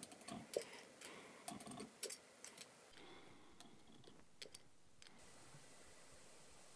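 Light clicks and clinks of a glass dropper and a small amber glass bottle being handled while drops are weighed out on a digital scale: a scattered run of small ticks for the first four or five seconds, then only a faint steady hiss.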